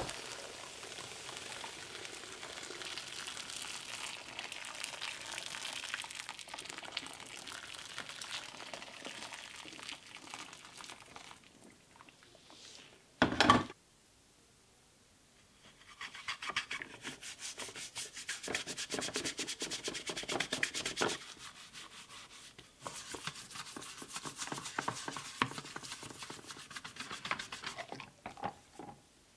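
Water poured from a metal pot into a steel tray over plastic drill housing halves for the first ten seconds or so, then a short loud knock. After that a brush scrubs the wet plastic housing of a Makita 6176D cordless drill in rapid strokes, in two spells of about five seconds each.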